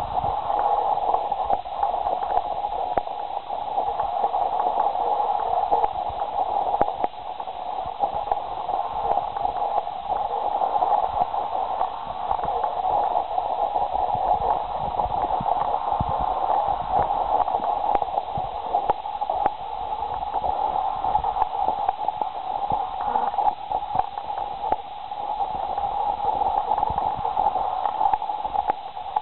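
A steady, crackling band of mid-pitched noise, like radio static, running without a break and with faint scattered ticks.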